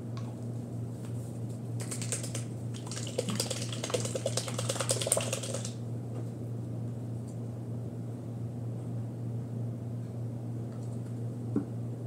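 Plastic bottle of craft paint being handled and shaken, a rapid rattling for about four seconds starting some two seconds in, followed near the end by a single knock as a bottle is set down on the table. A steady low hum runs underneath.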